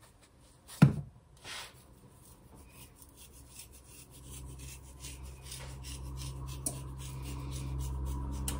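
Dried thyme crumbled between fingers and sprinkled over a raw turkey: faint rustling with small scattered crackles. A sharp knock comes about a second in, and a low steady hum comes in about halfway and grows.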